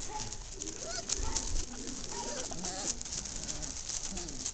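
Four-week-old English pointer puppies whimpering and whining softly: several faint, wavering calls overlapping one another.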